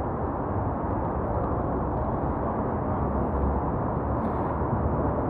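Steady low rumbling city street noise, even throughout, with no distinct events.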